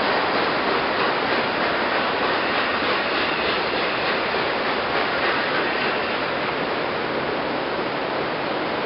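Fast-flowing river rushing over rocks: a steady, even noise of water.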